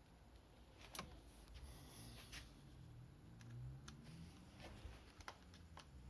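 Faint, sharp clicks, about six at irregular intervals, with no starter motor turning: the starter relay of a 2010 Yamaha XMAX 125 scooter clicking as the start button is pressed, the sign of a bad relay.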